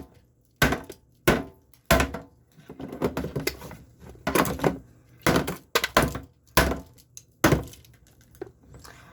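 Ice cubes being added to a blender jar: about a dozen hard knocks and clinks at uneven gaps as the cubes drop in one after another.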